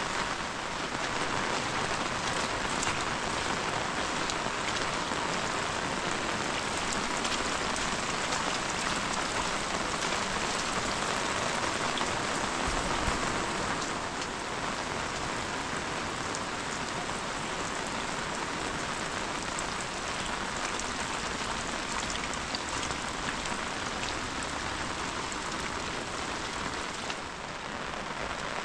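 Heavy rain falling steadily, a dense hiss with many individual drop ticks.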